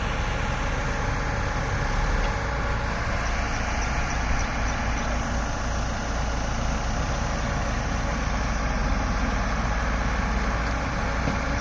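Diesel engines of a Hyundai 140 LC-7 crawler excavator and a backhoe loader running steadily as the excavator drives onto a lowbed truck trailer.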